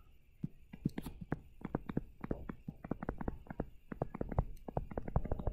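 A stylus tapping and scratching on a tablet screen while words are handwritten: a faint, rapid, irregular run of small clicks.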